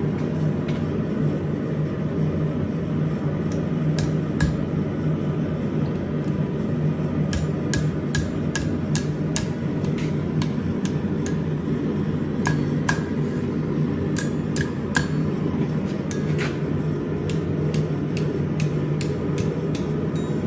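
Hand hammer striking steel on an anvil in irregular runs of blows with short pauses, several blows leaving a brief ring from the anvil. A steady low rumble runs underneath.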